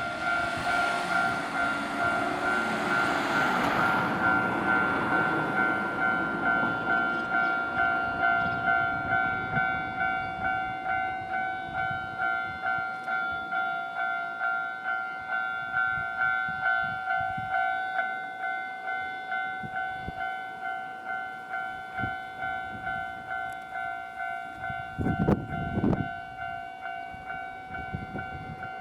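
Japanese railway level-crossing warning bell ringing in a steady, evenly repeating ding. A Nankai Main Line train runs over the crossing at first, its noise fading out over the first five seconds or so. A short low rumble with a couple of knocks comes near the end.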